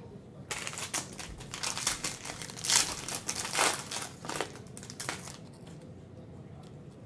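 Foil wrapper of a Panini Prizm basketball card pack crinkling and crackling as it is handled in the hands. It starts about half a second in, is loudest around the middle and dies away a little after five seconds.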